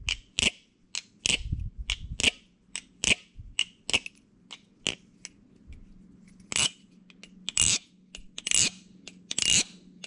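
Balisong trainer being flipped for a sound test: an irregular run of sharp metal clicks and clacks as the blade and handles swing on their pivots and strike, the loudest in the second half. With them comes the loose back-and-forth rattle of the blade between the handles that comes from pivots left dry without lube.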